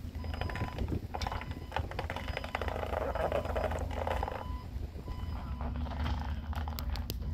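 Forklift engine running with a steady low rumble while it moves a heavy trolley bus, its noise thickening for a few seconds about a second in.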